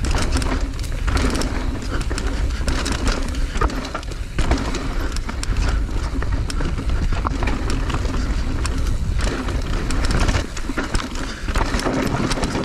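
Mountain bike descending a rough trail at speed: wind rushing over the microphone, with continual rattling and clattering from the tyres, chain and frame over rocks and roots.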